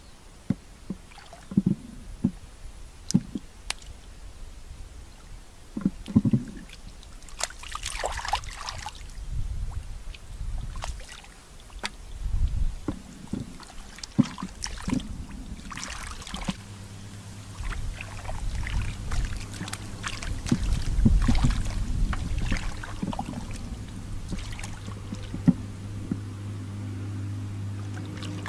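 Hands splashing and sloshing through shallow muddy water, with short wet slaps and squelches as they grope in the mud. A steady low hum comes in about halfway through and keeps on.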